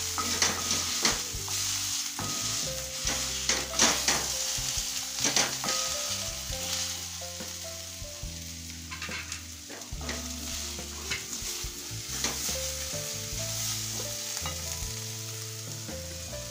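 Greens and spices sizzling in oil in a steel kadai, with a cooking utensil scraping and knocking against the pan as the mixture is stirred and pressed. The strokes come thick and fast at first and thin out after about seven seconds.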